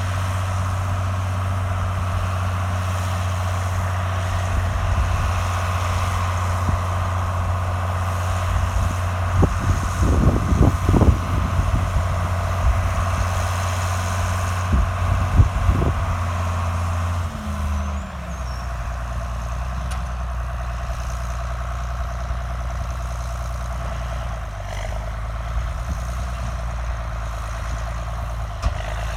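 John Deere 4440's six-cylinder turbo diesel running steadily under baling load, with a cluster of knocks about ten seconds in and again about fifteen seconds in. A little past halfway the engine note drops to a lower pitch and stays there.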